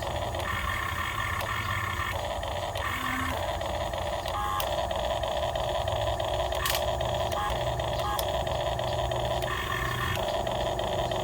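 Small electric motors of a Huina 1550 RC excavator running in short bursts with a fast buzzing whine, starting and stopping every second or two as the machine's functions are worked.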